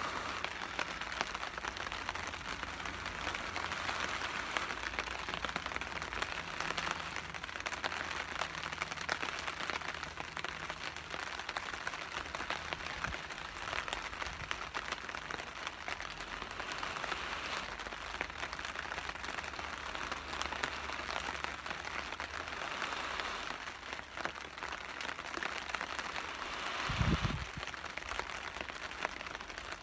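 Rain pattering steadily on a tarp overhead, with long breaths blown into a smouldering tinder bundle of jute and pine bark that swell and fade every few seconds as the ember is coaxed toward flame. A brief low thump comes near the end.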